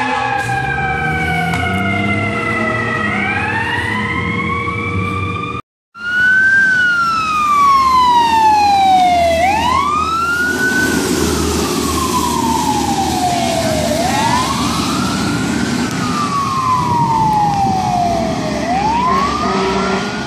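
Fire engine sirens wailing in slow cycles: the pitch falls steadily over about three seconds, then sweeps back up, over a low engine rumble. The sound breaks off for a moment about six seconds in, and another siren wailing the same way comes in.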